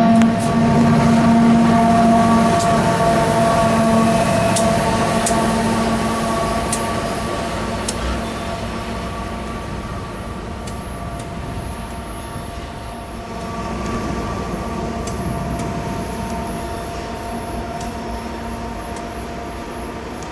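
Train rolling past and fading away: a steady diesel drone with scattered sharp clicks of wheels on the rails, growing gradually quieter.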